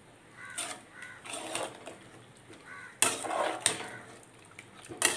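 Metal spoon stirring a thick beef masala in a pressure cooker, scraping and knocking against the pot several times, loudest about three seconds in.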